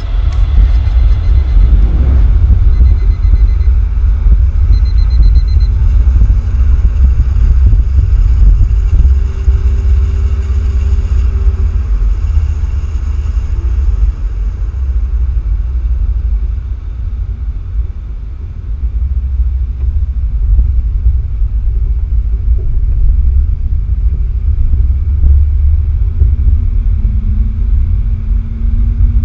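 Heavy wind and road rumble on a camera moving at speed behind a racing motorcycle, with a faint steady hum over it. The rumble dips briefly past the middle.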